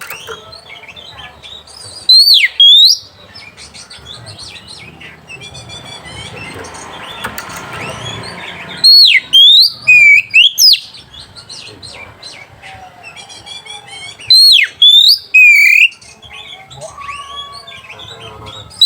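Oriental magpie-robin singing: loud bursts of sharp, sweeping whistled notes about every five to six seconds, with softer varied twittering and chattering in between.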